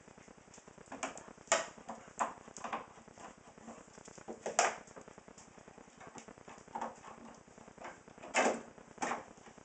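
Irregular knocks and clinks of dishes and kitchenware being handled while a dishwasher is unloaded, with a few louder knocks among softer ones.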